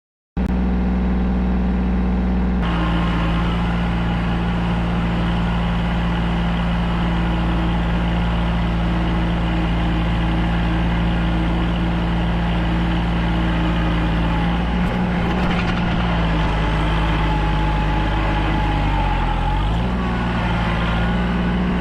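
An engine running steadily at constant speed, cutting in abruptly at the start; about two seconds before the end its pitch sags briefly and comes back up.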